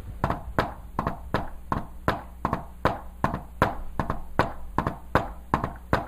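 A hand tapping on a whiteboard in a steady, even run of short knocks, about three a second. The taps beat out the S4–S1–S2 cadence of a fourth heart sound ("Tennessee"), the gallop of an atrium contracting against a stiffened left ventricle.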